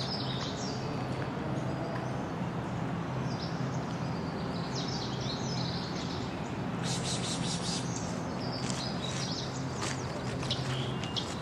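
Several small songbirds singing and chirping, short high notes scattered throughout, with a rapid buzzy trill about seven seconds in, over a steady low hum.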